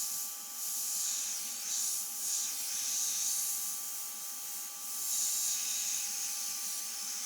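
Airbrush spraying paint: a hiss of air that swells and eases in short pulses as the trigger is worked.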